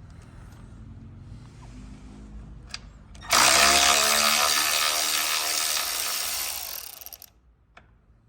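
A handheld power drill runs for about four seconds, starting suddenly about three seconds in with a loud motor whine and then tailing off.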